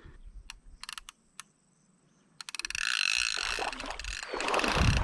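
Magnum 101 centrepin reel's ratchet check clicking: a few separate clicks, then about two and a half seconds in a fast, continuous clicking as the spool spins and a hooked carp takes line.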